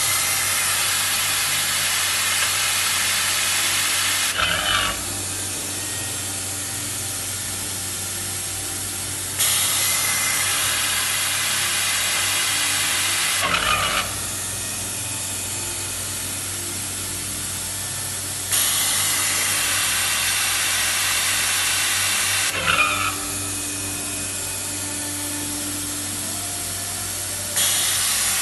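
Taylor CNC capacitor-discharge stud welder running its automatic cycle. A loud, even air hiss switches on sharply about every nine seconds and lasts about four and a half seconds. Each hiss ends with a brief burst of sharp mechanical clicks, over a steady low hum.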